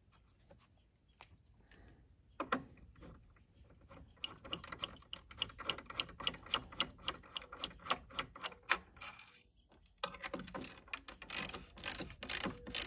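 3/8-inch ratchet with a 13 mm socket clicking as it runs in the battery hold-down strap bolt, at about five even clicks a second after a couple of scattered knocks. After a short pause near the end come louder clicks as the bolt is snugged down tight.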